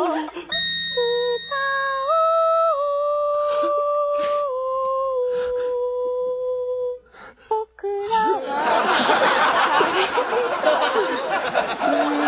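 A woman singing a cappella, holding one long drawn-out note for about six seconds that steps up in pitch and then settles lower, until it breaks off. After a short gap comes a few seconds of laughter and mixed voices.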